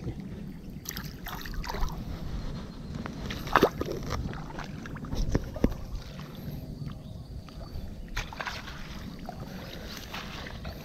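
Footsteps through dry grass, with grass and clothing rustling against a body-worn camera over a steady low rumble on the microphone. A few sharp clicks and rustles stand out, the loudest about three and a half seconds in.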